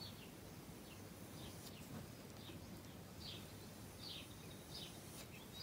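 Faint room tone with a scatter of short, faint high chirps that glide downward.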